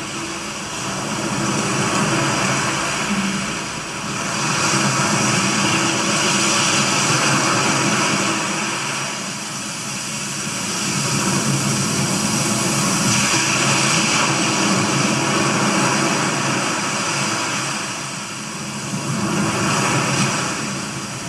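Sound effect of sea surf: a rushing wash of waves that swells and recedes every few seconds.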